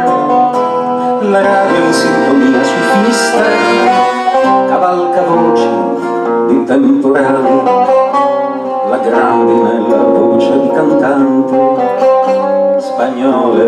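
Live acoustic band playing an instrumental passage, with plucked guitar lines over held notes.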